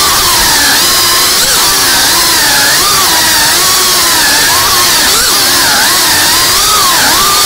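FPV drone's electric motors and propellers whining loudly, the pitch constantly rising and falling with quick throttle changes, over a steady hiss of rushing air.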